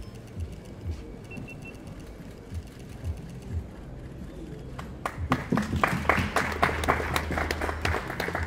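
A crowd clapping that breaks out about five seconds in and carries on, many sharp claps over a low hall hum.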